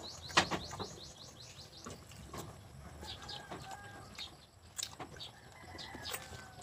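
Small birds chirping: a quick run of high chirps in the first second and a half, then scattered fainter chirps, with a few sharp clicks in between.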